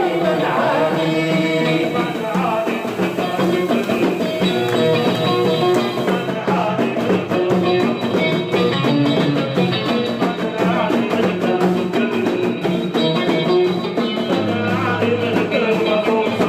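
Live band music: several instruments playing a melody over a steady rhythm.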